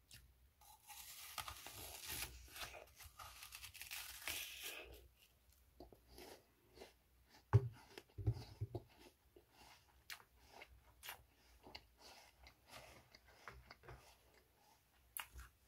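A person bites into a raw apple, the flesh crunching and tearing for several seconds, then chews it with scattered small crunches. Midway there is a sharp knock as the apple is set down in a bowl.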